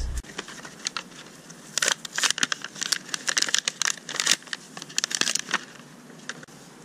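Thin plastic crinkling and crackling in quick irregular bursts, mostly between about two and five and a half seconds in, from disposable plastic gloves being pulled on and sealant-tube packaging being handled.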